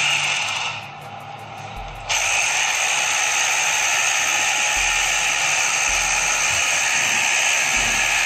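Hammer drill with a small masonry bit boring into a plastered wall, running at full speed. It stops briefly about a second in, then starts again and drills steadily on.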